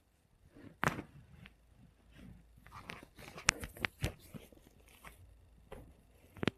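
Joints cracking during a chiropractic adjustment: one sharp crack about a second in, then a quick run of three or four sharp pops a little past halfway and one more near the end, with soft rustling between.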